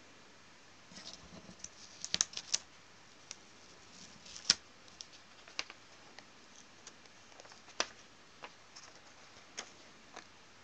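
A sheet of drawing paper being handled and lifted: irregular sharp crackles and clicks with short rustles, the loudest snaps about two and four and a half seconds in.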